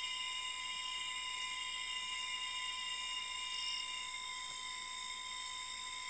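Forest ambience of insects calling: several steady, high-pitched tones held at once, one of them dropping out about four seconds in.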